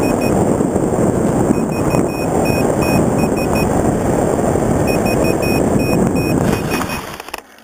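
Onboard audio of an FPV Raptor foam flying wing on a low pass: loud wind rush mixed with the electric pusher motor and propeller. A repeating pattern of short, high electronic beeps runs over it. The sound fades out in the last second.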